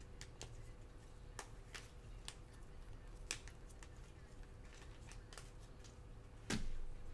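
Faint scattered clicks and ticks from gloved hands handling trading cards, with a louder rustling thump about six and a half seconds in. A faint steady hum runs underneath.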